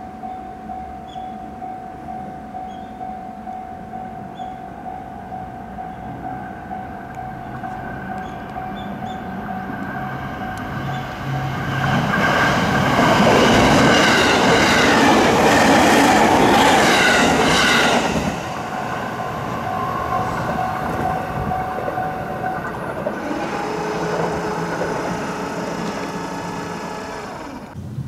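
A level-crossing warning bell rings steadily as a JR Hachikō Line electric commuter train approaches. The train passes close by for about six seconds in the middle, its wheels clattering rhythmically over the rail joints, and the bell keeps ringing for a few seconds after it has gone.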